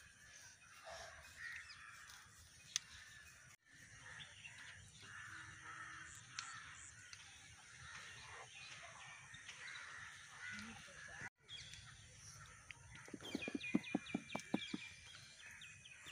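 Faint outdoor ambience with birds calling. About three-quarters of the way through comes a louder run of rapid, evenly repeated calls.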